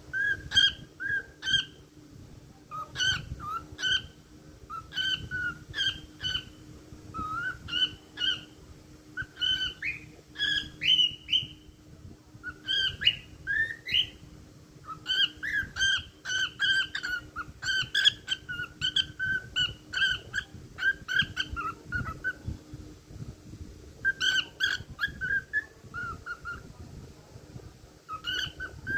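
Cockatiel whistling a song: rapid runs of short whistled notes, some gliding upward, in phrases broken by brief pauses.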